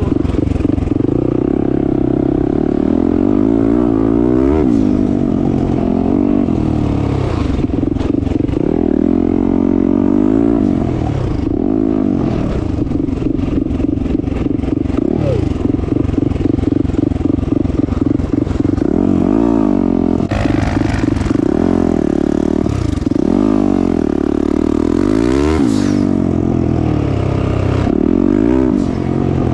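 Turbocharged Yamaha YZ450F single-cylinder four-stroke dirt bike engine being ridden hard, its revs climbing and dropping back again and again with the throttle.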